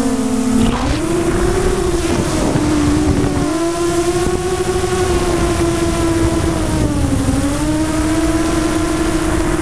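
Electric motors and propellers of an RC multirotor, heard from its onboard camera: a steady whine that is low at the start, rises about a second in, and dips and climbs again about seven seconds in as the throttle changes. Wind rush on the microphone runs underneath.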